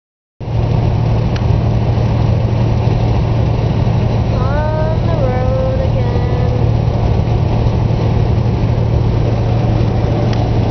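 Steady road and engine noise inside a moving car's cabin, with a short pitched voice-like sound about four and a half seconds in that rises, then falls and holds for a moment.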